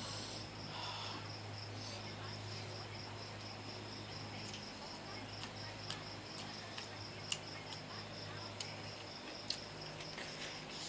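A cricket chirping steadily, about three chirps a second, over a low hum. A few sharp clicks come and go, one every second or so from about four seconds in.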